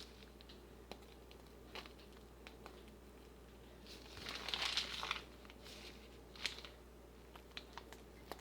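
Plastic piping bag crinkling as it is handled and squeezed, with a longer crinkle about four seconds in and scattered small clicks and taps.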